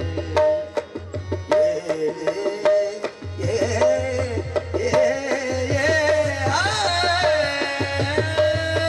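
Qawwali music: harmonium and tabla, with drum strokes in the first few seconds and a voice singing over the harmonium from about three seconds in.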